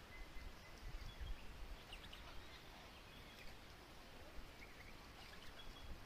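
Faint, scattered bird calls: short thin whistles and chirps, over a low rumble.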